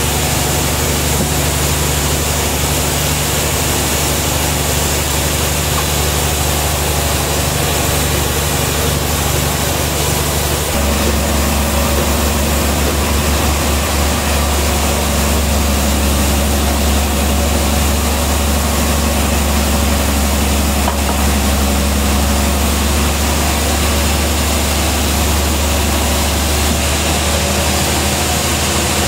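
Sawmill engine running steadily without cutting; about eleven seconds in, its low hum grows deeper and stronger and stays that way.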